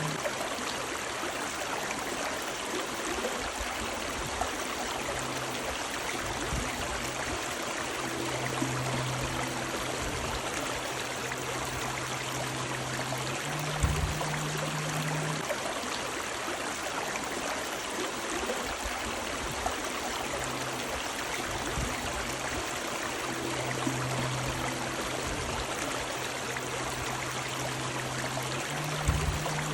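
Running river water rushing and babbling steadily, with a low hum that comes and goes and a low thump about halfway through and again near the end.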